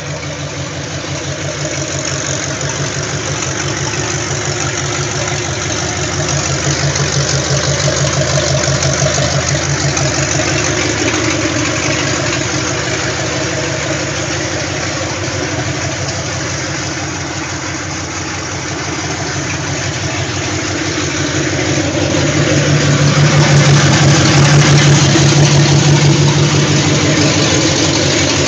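Big-block Chevy V8, stroked to 540 cubic inches and fitted with headers, idling steadily and growing louder twice, about a quarter of the way in and again near the end.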